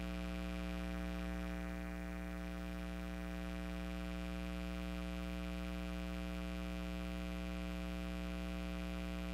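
Steady electrical hum: a low buzz made of a stack of fixed, evenly spaced tones that does not change.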